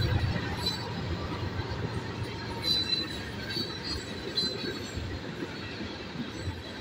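Freight train hopper cars rolling past with a steady rumble of wheels on rail and a few short, high wheel squeals near the middle. At the start, the low hum of a mid-train CSX diesel locomotive fades as it moves on.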